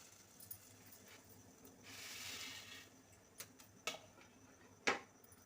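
Dry noodles going into a pot of salted boiling water: a brief hiss about two seconds in, then three sharp clicks and knocks of handling at the pot.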